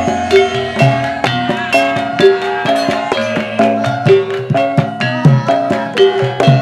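Javanese gamelan playing dance accompaniment: hand-drum strikes in a steady rhythm over ringing metallophone notes.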